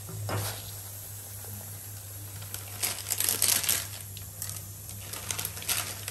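Plastic noodle-packet or sauce-sachet wrapper crinkling as it is handled. There is a short thump just after the start, then two clusters of sharp crackles, about three seconds in and again near the end.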